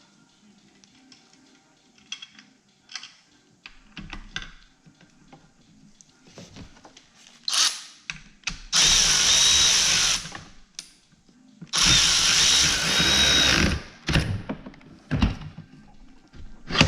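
A power drill runs bolts in, in two runs of about one and a half and two seconds, the second starting about a second after the first stops. Light clicks and knocks of handling the parts come before and between.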